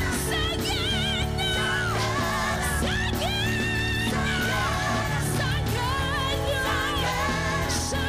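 Live singing: a woman's lead voice with a wide vibrato over instrumental backing, with held chords and a steady bass.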